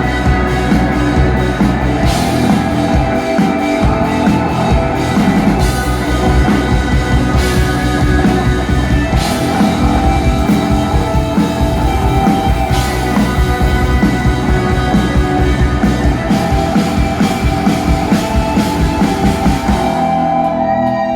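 Rock band playing an instrumental passage, with drums and guitar and no singing; the music stops near the end.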